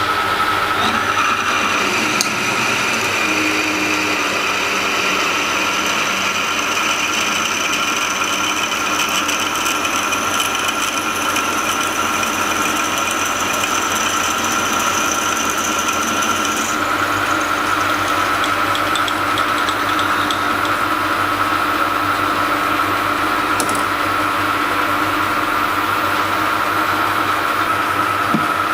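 Metal lathe running with a twist drill cutting into the centre of a spinning metal locomotive driving wheel: a steady machine hum with held whining tones. About seventeen seconds in the highest whine drops out while the rest runs on.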